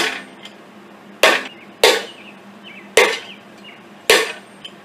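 Five hammer blows on a seized piston in a Ford 400 V8 engine block, each a sharp metallic strike with a short ring. The piston has broken free and is being driven down its rusted cylinder bore.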